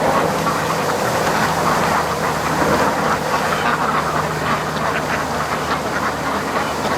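A flock of domestic ducks quacking continuously, many calls overlapping, over a steady rush of strong wind on the microphone.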